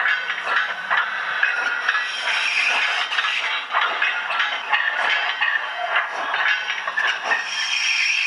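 Doehler & Haass model-railway sound decoder playing a recorded LMS Black 5 steam locomotive under way through the model's small speaker: a continuous run of exhaust chuffs and hiss as the OO gauge 7F moves off with its train of hoppers.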